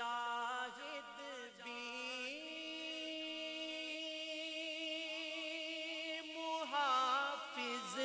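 Male reciter singing a manqabat unaccompanied: one long drawn-out note that steps up in pitch about two seconds in and is held, then breaks into wavering ornaments near the end.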